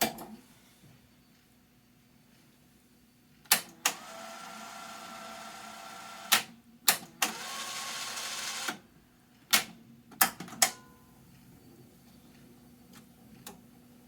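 Sony TC-K61 cassette deck's solenoid-driven tape transport clicking sharply as its buttons are worked, about nine clicks in all. Twice the transport runs the tape with a steady whir for two to three seconds between the clicks, about four seconds in and again about seven seconds in.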